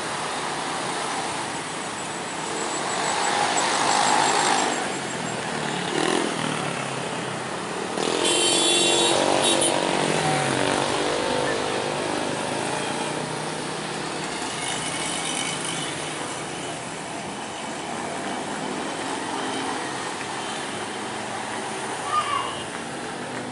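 Dense, slow-moving road traffic: car, motorcycle, truck and bus engines running and passing close by. A horn sounds for about a second and a half around a third of the way through.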